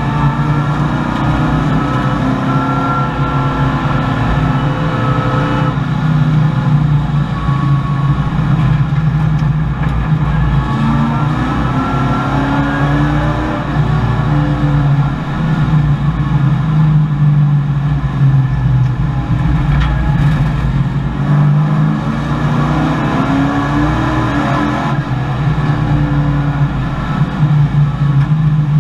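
Race-prepared Chevrolet Camaro's V8 engine heard from inside the cabin under racing load, its revs climbing through the gears and dropping again several times.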